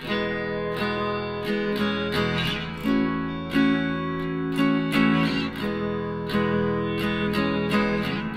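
Background music: an acoustic guitar strumming chords at a steady, even pace.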